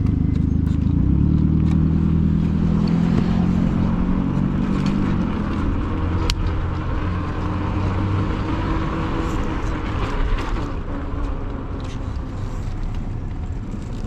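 Motor vehicle traffic close by: an engine's low, steady hum for the first five seconds or so, then the noise of passing traffic.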